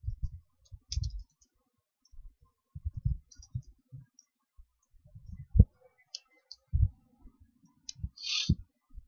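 Computer keyboard being typed on: scattered, irregular key taps and clicks.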